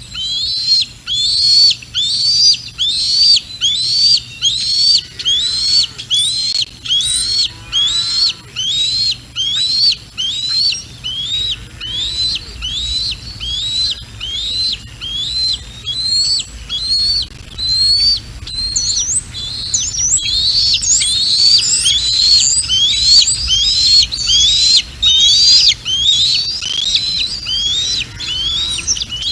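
Juvenile bald eagle calling over and over: high chirping calls about twice a second, each rising then falling. Wind rumbles on the microphone underneath and grows stronger in the second half.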